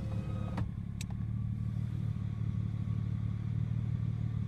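Truck engine idling with a steady low hum. A power window motor whines to a stop with a short clunk about half a second in, followed by a sharp click a moment later.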